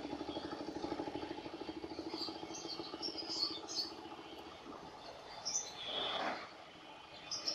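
An engine idling with a steady pulsing, fading away after about two and a half seconds, while small birds chirp in short high bursts. A brief swell of noise comes about six seconds in.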